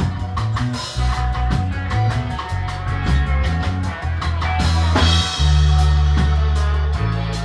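Live instrumental surf-ska band playing, with electric guitar over drum kit and bass. A cymbal crash comes about five seconds in, followed by a long held low note.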